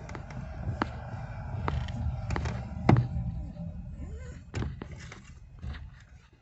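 Steering of a Corsa pickup being worked back and forth over a low steady rumble, with a handful of light clicks and knocks, the loudest about three seconds in. The dry knock from the loose steering-column bolt no longer comes through now that the bolt has been tightened.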